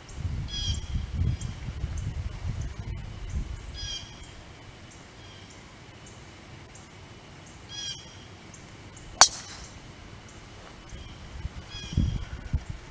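A bird calls four times, each call a short high note about four seconds apart. Low rumbling on the microphone fills the first few seconds. A single sharp crack comes a little past two-thirds in, typical of a golf club striking the ball.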